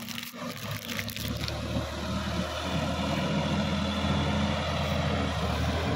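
Sonalika DI-50 RX tractor's diesel engine running steadily as it pulls a tiller through a flooded paddy field, growing louder about two seconds in as it comes closer.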